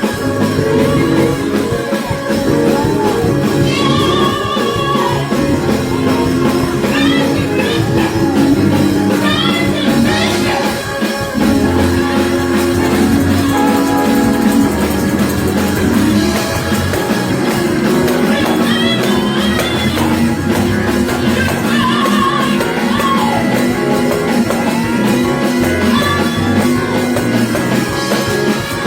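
Loud live worship music from a band, with voices singing over sustained instrumental chords.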